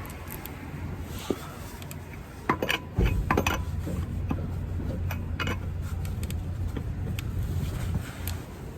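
Metal tools clicking and clinking while a car wheel's lug nuts are finished off, with a cluster of sharp clicks about two and a half seconds in. From about three seconds in there is also a steady low hum.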